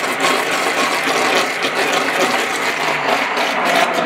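Handheld immersion blender running steadily in a pot of thick tomato soup, churning the liquid as olive oil is drizzled in to emulsify it.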